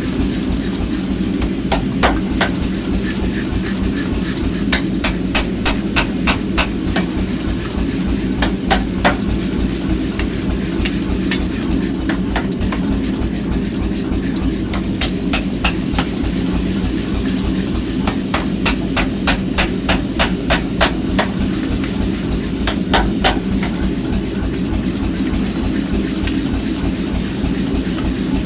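Hammer blows on iron in runs of quick, sharp strikes, about three a second, over a steady low machine hum.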